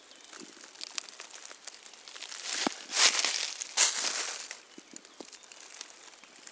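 Dry fallen leaves rustling and crunching as they are disturbed, with a few louder crunches about three to four seconds in and light crackles the rest of the time.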